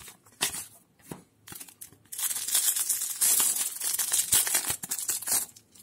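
Foil trading-card booster pack wrapper being crinkled and torn open by hand: a few short crackles at first, then dense crinkling and tearing from about two seconds in that stops just before the end.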